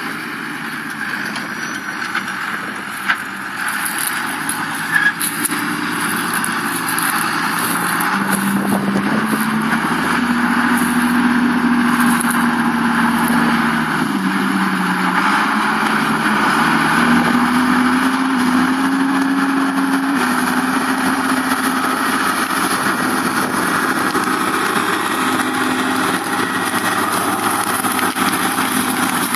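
New Holland 8870 tractor's six-cylinder diesel engine working under load while ploughing. It grows louder over the first ten seconds or so, and its note rises, dips briefly about halfway through, then climbs again.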